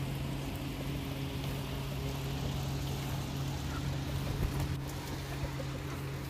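A steady low hum of a running machine over a low rumble, with a brief faint knock a little after four seconds in.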